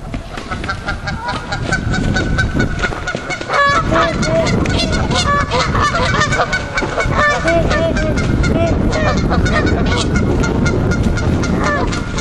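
A flock of Canada geese honking, many calls overlapping, getting louder and busier about three and a half seconds in. The birds are stirred up by two of them fighting.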